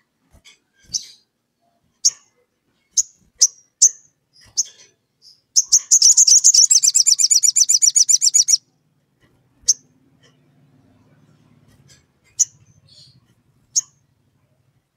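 Olive-backed sunbird calling: sharp single chips every second or so, then, about five seconds in, a loud, fast three-second trill of about ten notes a second, followed by a few more spaced chips. This is the lively calling-out to a rival that keepers play to provoke other sunbirds into calling.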